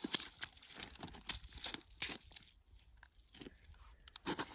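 Soft, irregular crunching and crinkling, with scattered clicks. They thin out in the middle and pick up again near the end.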